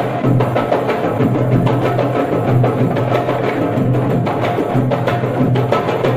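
Marawis ensemble of hand drums (small marawis frame drums, darbuka-type drums and large hajir drums) played by hand in a fast, steady, dense rhythm.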